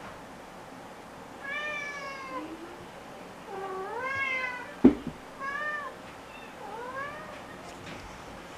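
A domestic cat meowing four times, drawn-out calls that rise and fall in pitch. A single sharp knock comes about halfway through and is louder than the meows.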